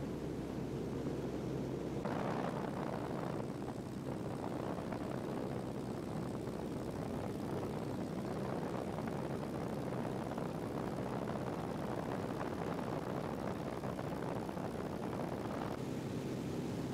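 Light plane in flight heard from inside the cabin: a steady drone of engine and airflow. About two seconds in a broader rushing noise joins it and drops away again near the end.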